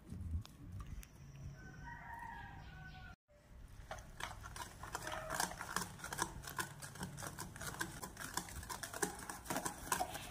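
Wire balloon whisk beating carrot cake batter in a stainless-steel bowl, starting about three and a half seconds in: quick clicks of the wires against the bowl, several a second. Before that, a short pitched call sounds in the background about two seconds in.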